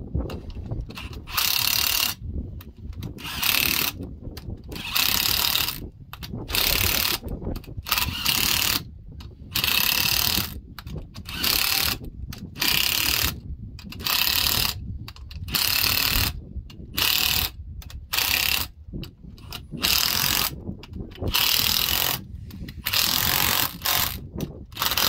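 Cordless impact wrench hammering in short repeated bursts, roughly one every one to two seconds, running down the bolts that hold a compressed spring on a combine's drive pulley.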